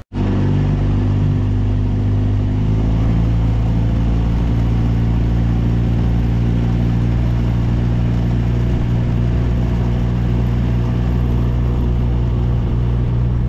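15 hp Mikatsu outboard motor running steadily under way, its note shifting slightly about three seconds in.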